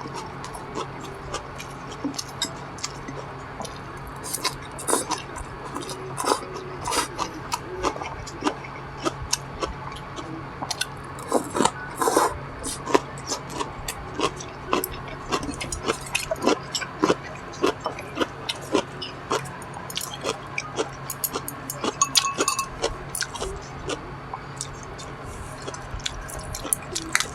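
Close-miked eating: a person chewing, with frequent sharp crunches and mouth clicks, over a low steady hum.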